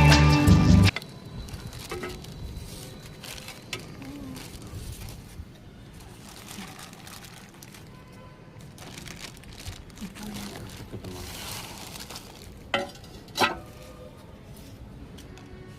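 Guitar music cuts off about a second in. Then comes quiet rustling and handling of a cast iron dosa tawa and its packaging, with two sharp knocks in quick succession near the end.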